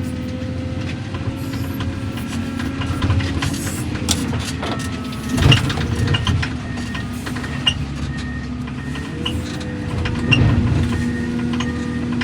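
Diesel heavy equipment running steadily, with the engine pitch shifting a little as the machines work. There are loud clanks of debris being handled about five and ten seconds in.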